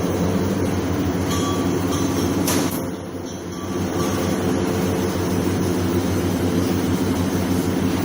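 Steady low mechanical drone of workshop machinery, dipping briefly about three seconds in.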